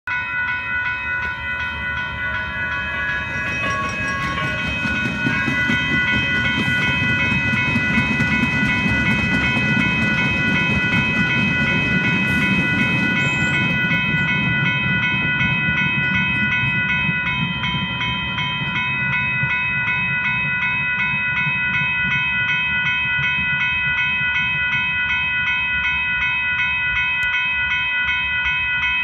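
Grade-crossing warning bell ringing in rapid, even strokes throughout. From about five seconds in to about eighteen seconds, a three-car UTDC light rail train rumbles past over the crossing, and that is the loudest part.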